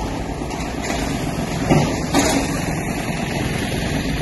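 Heavy excavator engine running during demolition work, with a couple of louder knocks near the middle.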